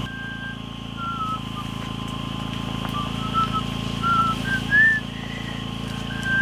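A string of short, clear whistled notes, some held level and some sliding up or down, loudest about five seconds in, over a steady low hum.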